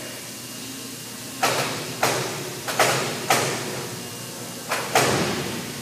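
About half a dozen sharp metal knocks and clanks from work on the propeller assembly, starting about a second and a half in, each with a short ringing tail that echoes in the large hangar.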